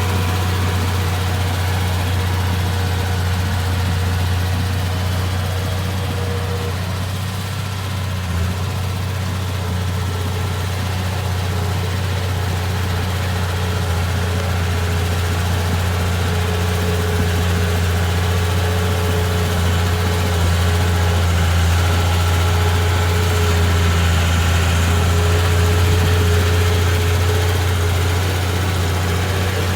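Bulldozer's diesel engine running steadily at a low, even pitch, with no change in speed.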